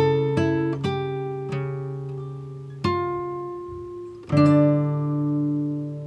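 Slow background music on plucked guitar: single notes and chords struck a second or so apart, each left to ring and fade, with a louder chord about four seconds in.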